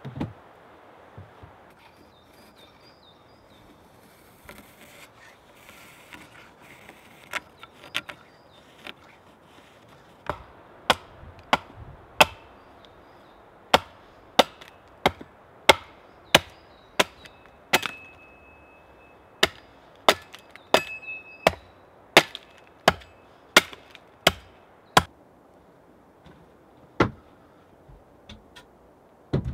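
Axe chopping a wooden rafter held upright on a chopping block: about twenty sharp blows, roughly one every two thirds of a second. The blows start about seven seconds in and stop shortly before the end.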